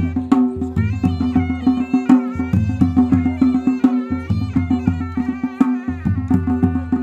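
Live traditional Ladakhi folk music: drums struck with sticks in a steady rhythm under a melody that runs over a held drone.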